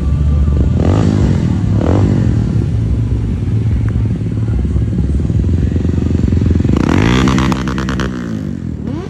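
Motorcycle engine running loudly and being revved twice, the pitch rising and falling about a second in and again around seven seconds in.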